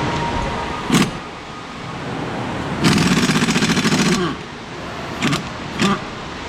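Pneumatic impact wrench hammering in one burst of about a second and a half while suspension bolts are worked on, with a sharp metallic click before it and two short knocks after.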